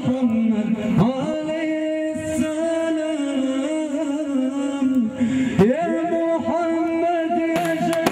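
A man singing an unaccompanied folk chant into a microphone, holding long notes and sliding up into each new phrase, with a few strikes on a frame drum near the end.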